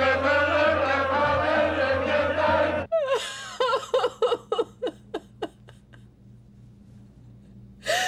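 Football supporters in a pub singing a chant together, cut off suddenly about three seconds in. Then a woman sobbing in a run of short gasping cries that slow and fade, with one more sob near the end.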